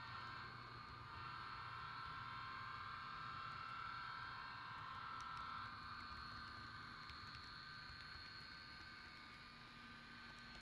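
Faint steady hum with a constant high whine, a little stronger in the first half, and no distinct events.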